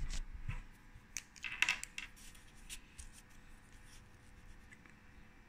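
Sheet of loose-leaf paper being handled and slid into place on a desk, with light rustles and clicks, mostly in the first two seconds.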